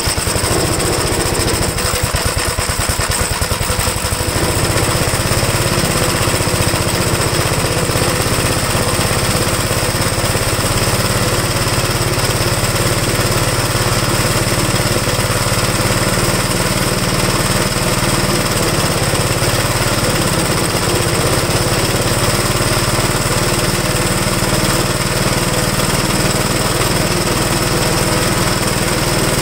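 1969 Gravely L tractor's single-cylinder engine, strap-started on choke at about half throttle, catches at once and runs fast and steady. It has no governor, so the throttle alone holds its speed. Separate firing pulses can be heard for the first few seconds before it settles into an even drone.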